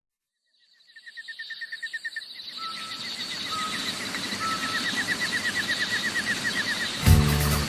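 Rainforest ambience fading in: a fast, steady chirping trill, three short whistled notes and a soft hiss underneath. The song's music comes in near the end.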